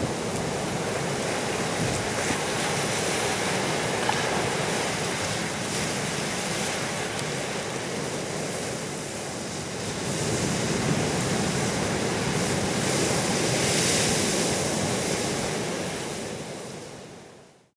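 Ocean surf breaking over rocks and washing through tide pools as a steady rushing noise that swells louder for a few seconds, then fades out near the end.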